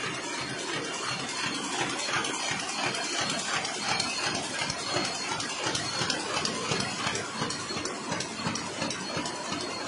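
Square-bottom kraft paper bag making machine running: a steady mechanical clatter with fast, continuous clicking from its moving rollers and folding parts.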